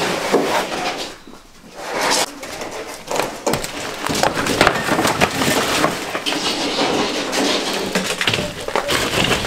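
A ceiling panel cracks and tears as a section of ceiling is pulled down with its ceiling fan still attached. Broken drywall and the fan clatter and crash onto a debris pile, in irregular knocks and scrapes that thicken after a short lull about a second in.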